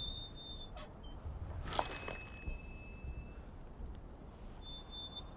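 Low rumble of battle ambience with one sharp crack about two seconds in, followed by a faint high steady tone.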